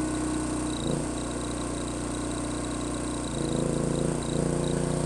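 Philking 4200 inverter generator's engine running steadily while powering an inverter welding machine, its note shifting between two steady pitches a few times as the welding load comes and goes.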